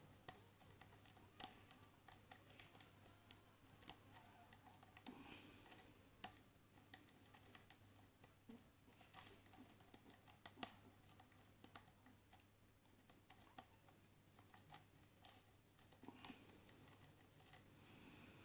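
Faint, irregular small clicks and scrapes of a lock pick working the pins of a Keso 2000 lock under a tension wrench.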